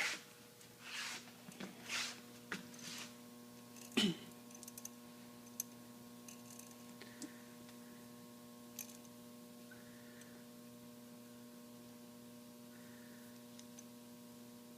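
Steady electrical hum, with a few short scraping sounds in the first three seconds and one sharp click about four seconds in, then only the hum with faint ticks.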